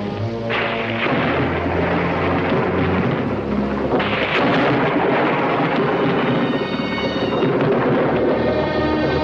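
Dramatic orchestral score over rolling thunder, the rumble surging about half a second in and again about four seconds in.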